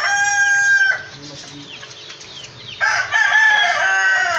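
Rooster crowing: the end of one held crow in the first second, then a second crow starting about three seconds in that slides down in pitch as it ends.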